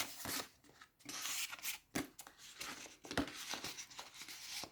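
Paper and cardstock rustling and scraping as journaling cards are slid back into a paper pocket of a handmade lapbook, with a few soft taps of card against card.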